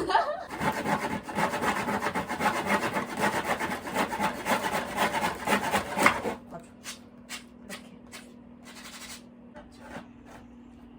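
Fast, repeated rubbing strokes against wood for about six seconds, then they stop suddenly, leaving a faint steady hum and a few light clicks.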